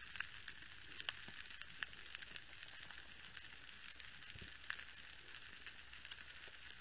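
Underwater coral reef ambience: a faint, continuous crackle of many scattered clicks and snaps, typical of snapping shrimp on a reef, over a low steady hum.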